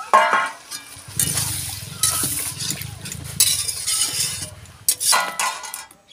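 Metal spoon stirring and scraping a kadhai of curry just thinned with water, with sharp metal clinks against the pan near the start and again about five seconds in.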